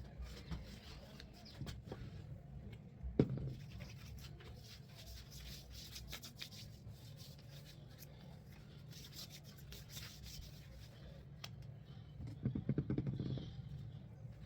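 Soft rubbing and rustling handling noises with scattered light clicks, a sharper knock about three seconds in and a louder stretch of rubbing near the end.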